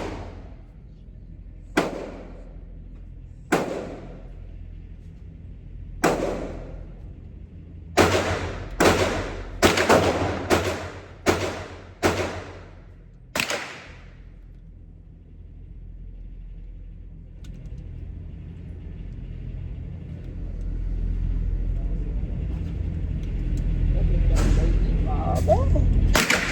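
Glock 19 9mm pistol fired about ten times. The first shots come a couple of seconds apart, then they quicken to a rapid string under a second apart, each crack trailing off. Later a low rumble builds, with a few more shots near the end.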